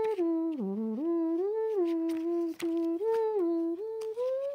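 A man humming a tune, holding notes and stepping up and down between them, with a short dip to a low note about a second in.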